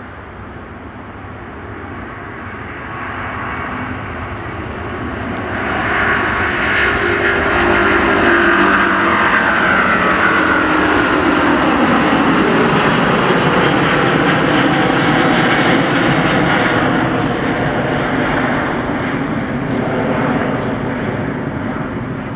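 Airbus A350-900's Rolls-Royce Trent XWB turbofans at takeoff thrust. The noise grows louder over the first six seconds, stays loud with tones falling in pitch as the jet passes, then slowly fades.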